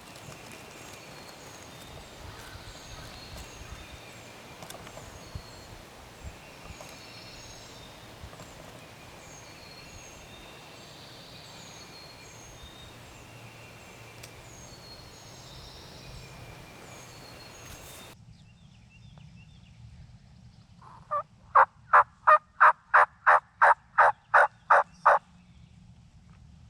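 A run of about eleven loud, evenly spaced turkey yelps, roughly three a second, lasting some four seconds near the end. Before it, faint repeated high bird chirps sound over a steady background hiss, and they cut off suddenly partway through.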